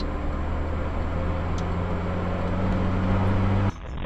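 Car engine and road noise heard inside the cabin of a dashcam-equipped car, a steady low hum. It cuts off suddenly near the end.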